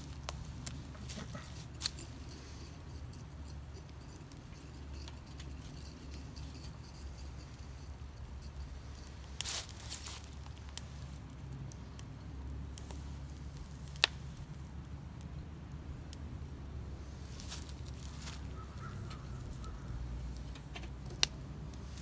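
A few sharp clicks and knocks of a glass wine bottle being gripped and lifted with a metal tool off a tin-can twig stove, over a steady low rush of a creek.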